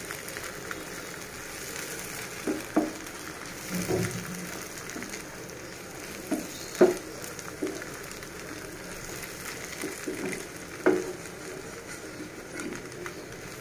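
Pieces of cow brain frying in oil in a pan with a gentle, steady sizzle, stirred with a wooden slotted spatula. The spatula scrapes and knocks against the pan every second or two.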